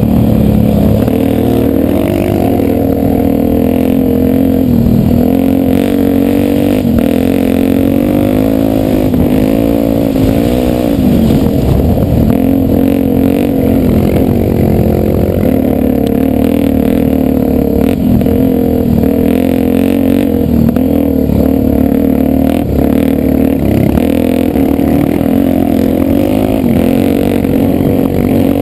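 Single-cylinder four-stroke trail motorcycle engine running under way, its pitch rising and falling as the throttle is worked, with some clatter over rough ground.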